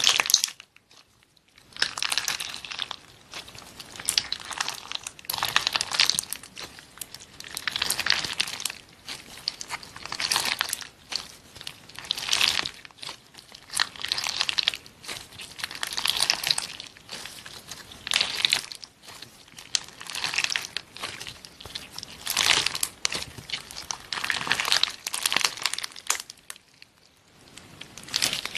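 Slime being squeezed and pressed by hand, a series of wet, noisy squishes coming about once every two seconds.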